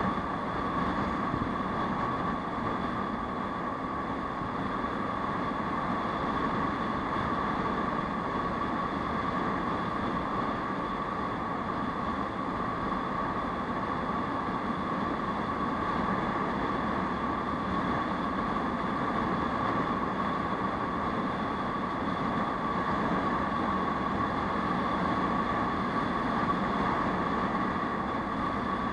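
Aprilia SR 150 scooter's single-cylinder engine running at a steady cruise, mixed with wind and road noise, with a steady high hum over it and no changes in level.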